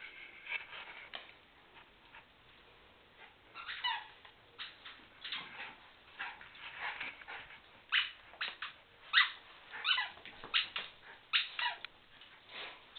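Cairn terriers at play, giving a series of short, high-pitched yips and whines, some sliding down in pitch, more frequent and louder in the second half.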